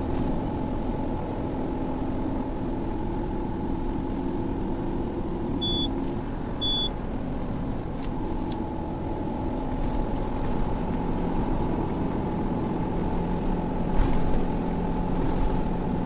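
Car cruising on an expressway, heard from inside the cabin: steady road and engine noise. About six seconds in come two short, high beeps a second apart, and a brief knock sounds near the end.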